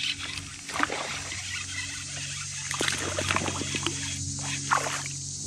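Spinning reel being cranked to reel in a hooked fish from a kayak, a steady low whirr with scattered short splashes and clicks.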